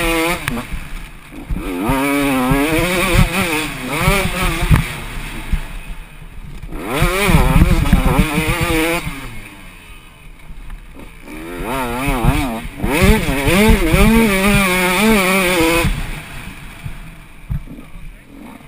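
Dirt bike engine heard from on board, revving in repeated rising and falling sweeps as the rider accelerates and backs off. It eases off about six and ten seconds in, then falls away to a low run over the last couple of seconds.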